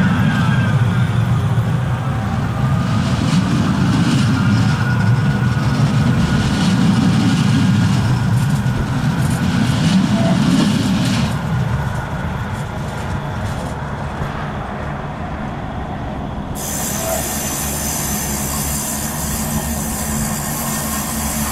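Bombardier Flexity Swift M5000 light-rail tram passing at close range: a loud low rumble from its wheels and running gear with a faint higher whine. The rumble eases off about halfway through, and a lower, steady running sound continues as the tram rounds a curve.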